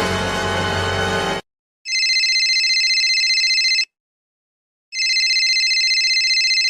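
A telephone ringing twice, each ring a steady warbling trill of about two seconds with a one-second pause between, following the last second or so of a short music sting.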